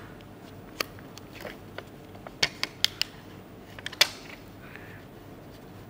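Fingernails picking at and peeling the protective sticker off the base of a white plastic ClicBot module: scattered small clicks and ticks, the sharpest about four seconds in, then a brief soft rustle.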